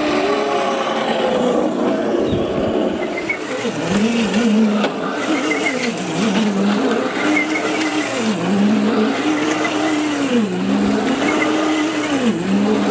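Small solar-charged electric go-kart driving and turning on asphalt: its motor whines, the pitch rising and falling about every two seconds as it speeds up and slows, over a steady hiss of the wheels on the pavement.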